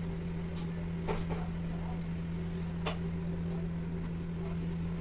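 A steady low hum at an unchanging pitch, with a few light clicks and taps about a second in and again near the three-second mark.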